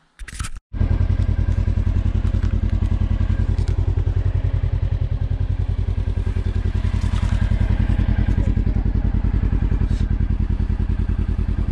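An engine idling steadily with a fast, even pulse, starting abruptly about a second in after a brief noise.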